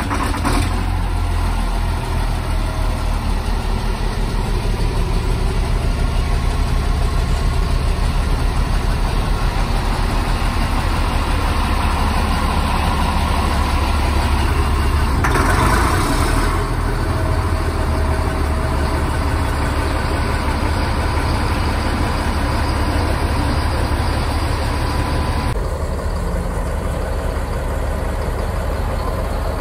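Heavy diesel engine of a Caterpillar 938G wheel loader carrying a two-stage snow blower, running steadily with a deep rumble. A brief louder rush of noise comes about halfway through.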